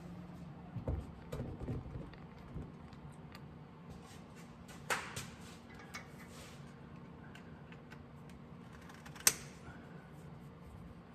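Scattered small metal clicks and taps of a screwdriver working at the screws of the points and condenser inside a distributor, with one sharp click about nine seconds in the loudest.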